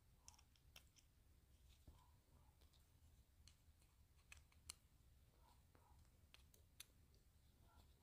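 Near silence, broken by a scattering of faint, sharp clicks from small tools and screws as the handle screws of a folding automatic knife are worked on.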